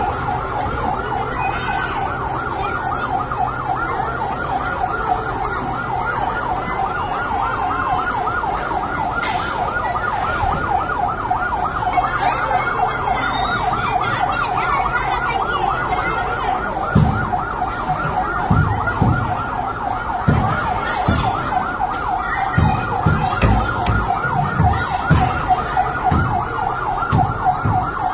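Fire truck siren sounding continuously, a fast two-tone warble that repeats without a break. Irregular low thumps join it in the second half.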